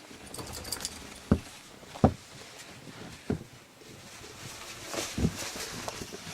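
Footsteps trudging through deep snow: four dull, crunching thumps, irregularly spaced, over a light hiss.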